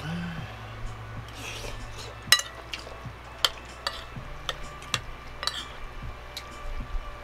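A metal spoon clinking and scraping against a ceramic plate as someone eats, a string of sharp clinks about every half second, the loudest about two seconds in.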